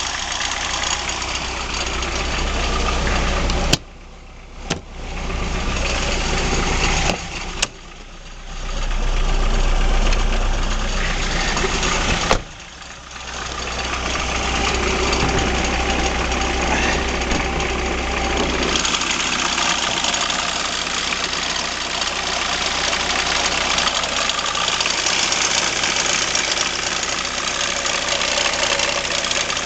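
BMW E36 318tds four-cylinder turbodiesel engine idling, with the odd noise that the owner hears now and then at idle from somewhere at the front of the engine and has not yet traced. Three times the sound drops away suddenly for about a second after a sharp click, then comes back.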